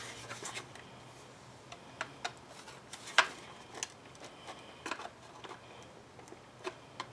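Scattered light clicks and taps from the plastic housing and circuit board of an opened Snap-on ACT 5500 halogen leak detector as it is handled and turned over. The sharpest click comes about three seconds in.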